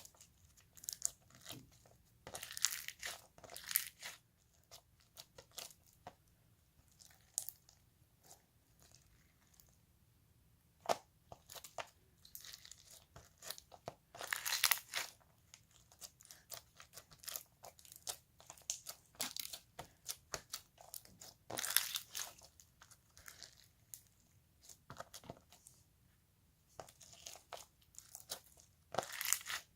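Stationery-store slime being squeezed and stretched by hand: irregular crackling and popping, close to the microphone.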